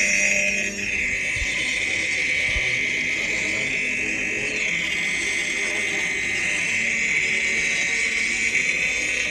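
A steady, high-pitched buzzing drone with an insect-like chirr, running on without pause.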